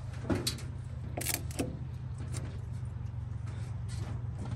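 1939 Ford 1.5-ton truck's flathead V8 idling steadily. A few sharp clicks sound in the first two seconds.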